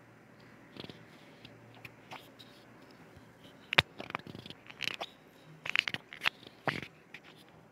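A spatula scraping and knocking against a pan as it stirs vermicelli boiling in jaggery water. There are a few scattered clicks at first, then a busier run of scrapes and knocks from about four seconds in until near the end, over a low steady bubbling.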